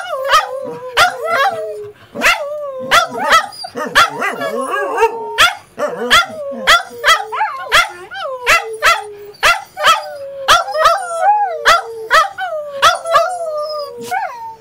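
A corgi and a border collie–corgi mix howling together, with sharp barks and yips about twice a second over long, slowly falling howled notes.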